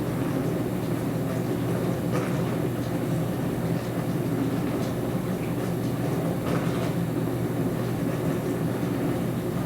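Dishwasher running: a steady low hum and rumble from the machine, with a few faint clicks.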